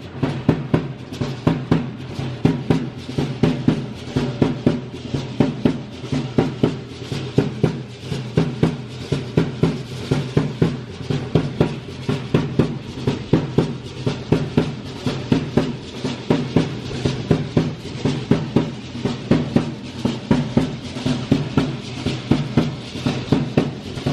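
Drum beating a steady, driving rhythm for a matachines dance.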